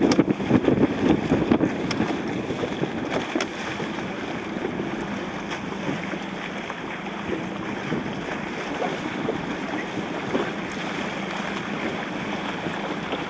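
Wind buffeting the microphone over choppy water, gusting hardest in the first couple of seconds and then settling to a steady rush.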